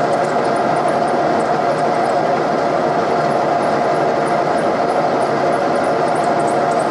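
Milling machine running steadily while a drill bit in its spindle bores out a broken exhaust manifold bolt in a Ford 460 V8 cylinder head.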